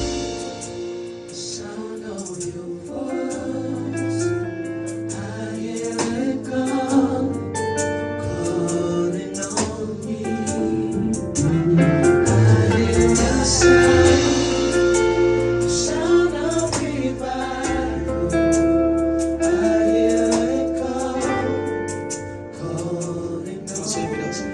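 Live gospel worship music: voices singing over sustained keyboard chords and a bass line.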